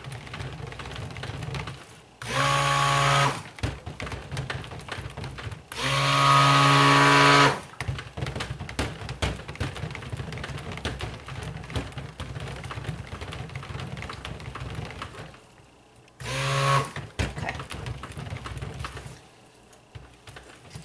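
Immersion stick blender pulsed in a tub of cold-process soap batter: three short bursts of motor whine, the middle one the longest. Between bursts the blender head stirs and scrapes through the thick batter, blending in the additives until they are fully incorporated.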